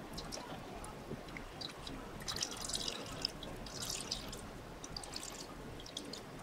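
Whey dripping and trickling into a bowl as curd wrapped in a cloth is squeezed by hand: faint, irregular drips.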